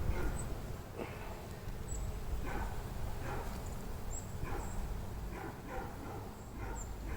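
Short yelping animal calls, about ten of them, coming at uneven intervals over a low wind rumble on the microphone.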